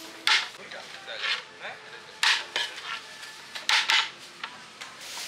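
Metal ladle scraping and clanking against the side of a large metal cooking pot as rice is scooped out, a few sharp loud strokes about a third of a second in, just after two seconds and near four seconds.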